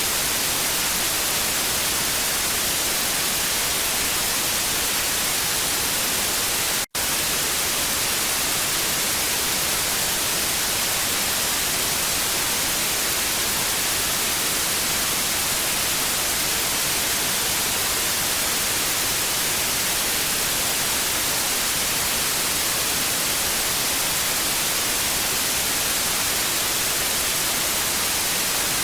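Television static: a steady, even hiss weighted toward the high end. It cuts out for an instant about seven seconds in.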